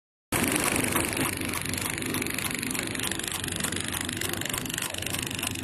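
Automatic paper-card friction feeder and film pillow packing machine running: a steady motor hum under a fast, even mechanical clatter of the feed rollers and conveyor.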